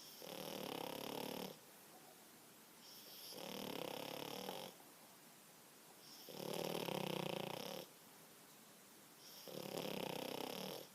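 A French Bulldog snoring in its sleep: four long, rasping snores in a slow, even rhythm, about one every three seconds.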